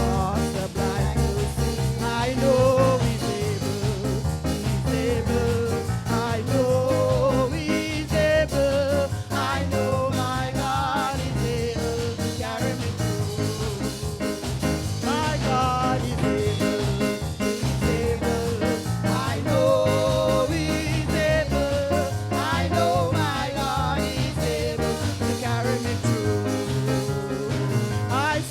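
Music: a song with a singing voice over instrumental accompaniment and a steady beat.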